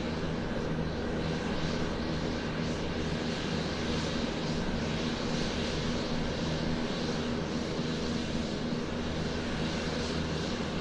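Fixed-wing airplane taxiing, its engine running steadily with a constant low hum and rushing noise.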